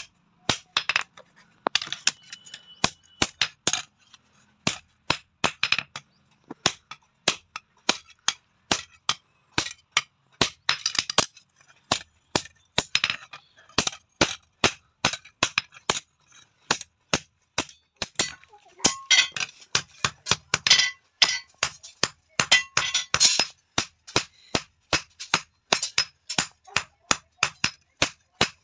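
Blacksmith's hand hammer striking red-hot steel held on an anvil, forging a rod flat into a spear blade: a steady run of ringing blows, about two to three a second, with a couple of short pauses.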